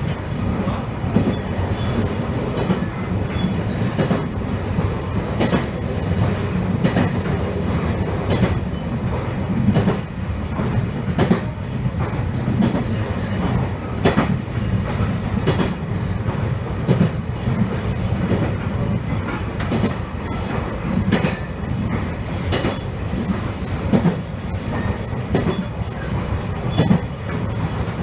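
Electric commuter train running along the line, heard from inside the car: a steady low running hum with irregular clacks of the wheels over rail joints.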